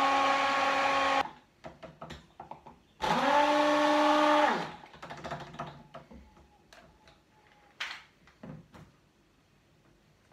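Hand-held immersion blender whirring in a tall beaker, emulsifying garlic and olive oil into alioli. It stops about a second in and gives a few light clicks and knocks. It then runs a second short burst that spins up and winds down over about a second and a half, followed by a few more knocks as it is lifted out.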